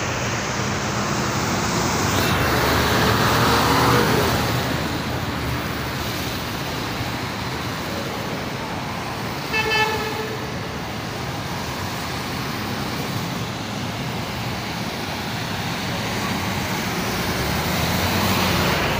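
Road traffic on a wet road: cars and motorbikes passing with steady tyre and engine noise, one vehicle going by close about three seconds in and another near the end. A single short car-horn toot sounds about halfway through.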